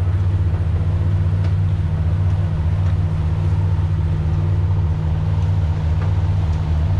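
The engines of the Flying Cat 6 high-speed ferry running at idle while it lies at the quay: a steady low engine drone, with water churning at the stern.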